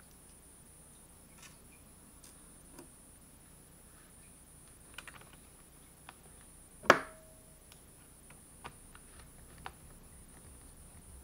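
Faint scattered clicks and taps of small screws and a screwdriver on a laptop's plastic back cover, with one sharper click that rings briefly about seven seconds in.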